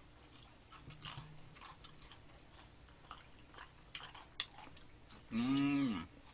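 Quiet chewing and biting of crispy soy-sauce fried chicken with faint clicks, then one sharp click. Near the end comes a loud hummed 'mmm' that rises and falls in under a second, an eater's sound of enjoyment.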